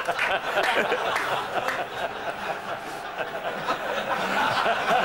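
Studio audience laughing, a continuous wash of many people's laughter.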